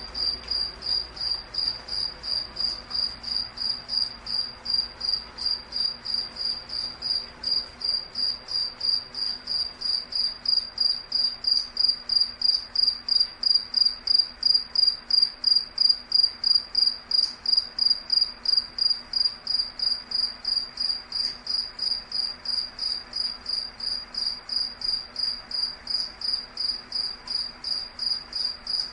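Cricket-like insect chirping in a steady, even rhythm of short high-pitched pulses, about three a second, growing somewhat louder toward the middle.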